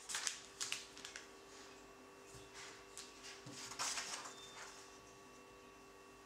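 Paper pages of a stapled zine being turned by hand: crisp rustles and swishes in the first second, then again around four seconds in, over a faint steady hum.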